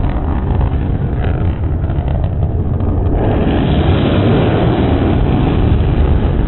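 Jet noise from a Blue Angels F/A-18 Super Hornet making a low, fast sneak pass: a deep rumble that grows louder and fuller from about three seconds in as the jet closes on the crowd.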